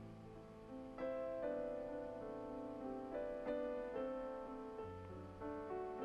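Background piano music: gentle notes struck one after another over held low notes.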